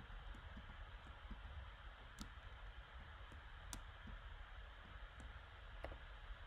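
Scattered computer mouse clicks, two sharper ones about two and three and a half seconds in, over a faint steady low hum.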